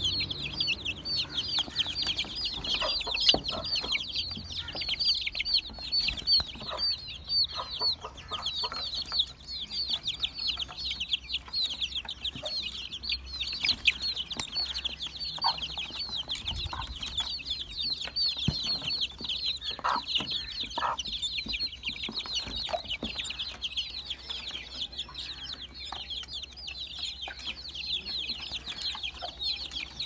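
A flock of young chickens peeping without a break: a dense stream of short, high, falling peeps, many at once, with scattered light taps and clicks among them.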